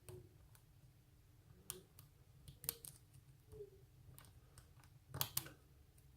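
Faint, scattered clicks of a hook pick working the pins of a Euro cylinder lock held under tension, the loudest pair about five seconds in.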